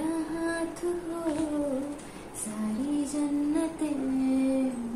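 A woman singing a slow Hindi film song, holding long drawn-out notes.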